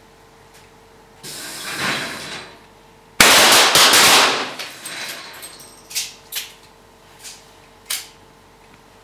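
Pistol shots from several shooters on a 25 m range in the duelling stage: a dense burst of overlapping shots, then four separate single shots spread over the next two seconds. Before the shots, a hiss swells and fades about a second in.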